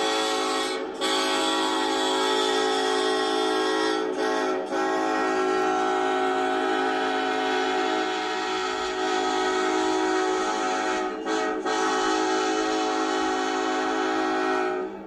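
Diesel locomotive air horn blowing long, steady blasts, broken by short gaps about a second in, twice around four seconds and twice around eleven seconds, and cutting off near the end.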